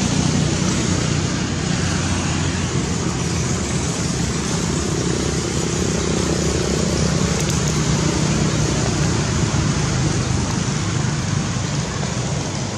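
Steady road traffic noise: vehicle engines running continuously nearby.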